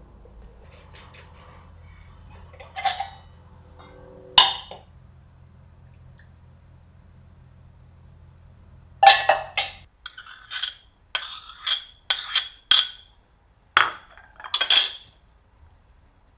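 Kitchenware clinking as food is scraped from a metal bowl and spooned into a ceramic bowl: two sharp clinks a few seconds in, then a quick run of clinks and scrapes through the second half.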